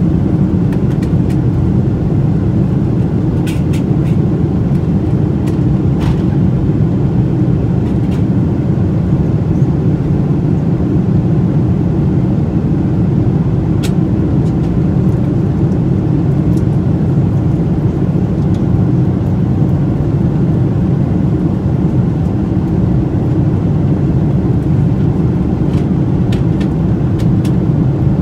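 Steady cabin noise of a Boeing 777-200ER climbing out after takeoff, heard from a window seat over the wing: an even, low rumble of engine and airflow, with a few faint ticks.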